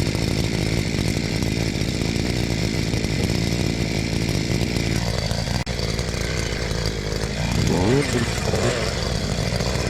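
Two-stroke chainsaw running steadily while cutting brush and trees.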